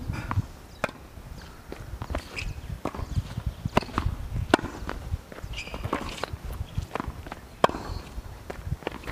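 Tennis rally on a hard court: irregular sharp pops of racket strings striking the ball and the ball bouncing on the court, a few each second.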